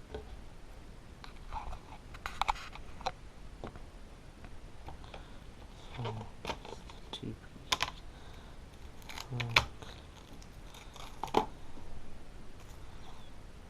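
Cardboard box and plastic packaging being handled and opened: irregular clicks, taps and light scraping, with a few louder knocks.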